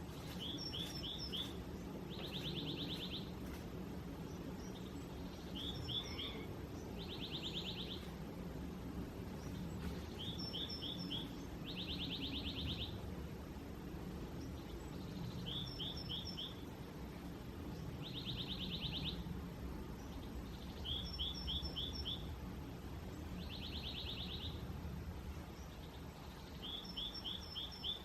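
A songbird singing the same short song over and over, about every five seconds: three to five quick high notes, then a buzzy trill lasting about a second. A steady low rumble continues underneath.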